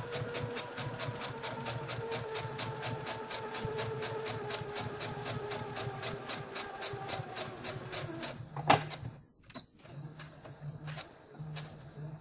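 Brother electric sewing machine stitching a seam: a steady motor whine with a fast, even clatter of stitches, about five a second, that stops about eight seconds in. A single sharp click follows, then a few lighter clicks and a low hum that comes and goes.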